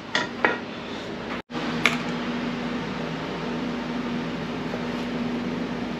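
Shop air compressor running with a steady hum, under a few sharp metal clinks in the first couple of seconds as steel steering parts are handled.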